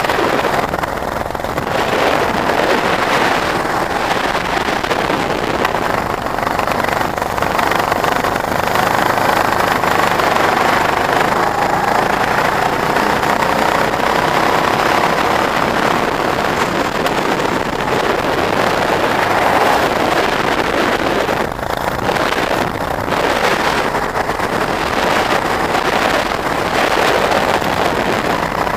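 Go-kart engine running hard through a lap, heard from the seat, its pitch rising and falling with the throttle through the corners.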